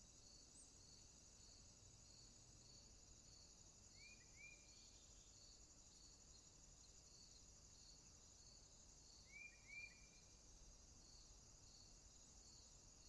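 Faint evening insect chorus: a steady high buzz with a cricket chirping about twice a second. Two brief double chirps stand out, about four seconds in and again near ten seconds.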